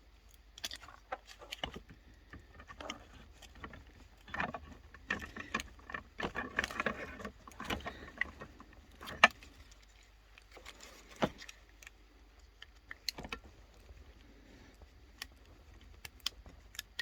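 Self-balancing scooter battery pack being pried apart by hand: irregular clicks, scraping and rattling of the casing and cells, with a sharp snap about nine seconds in and another about two seconds later as parts come free.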